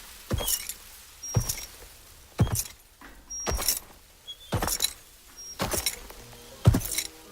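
A series of sharp knocks or steps, evenly spaced about one a second, seven in all.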